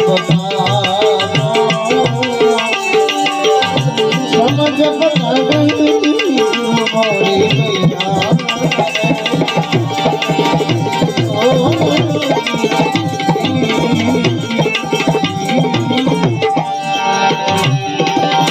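Instrumental interlude of a devotional bhajan: tabla keeps a steady rhythmic beat under a wavering melodic line played on an accompanying instrument.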